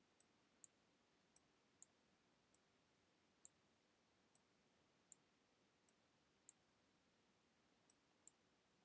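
Computer mouse clicking: about a dozen short, sharp, thin clicks at irregular intervals, roughly one to two a second, over faint room hiss.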